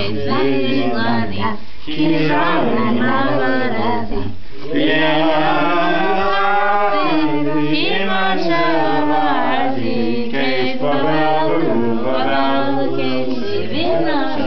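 Several people singing together without instruments.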